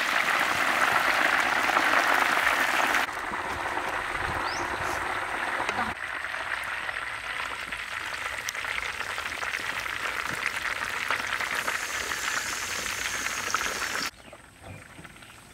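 Hot oil sizzling and crackling in a large wok as whole chickens deep-fry. It is loudest for the first few seconds, steps down twice, and drops away sharply near the end.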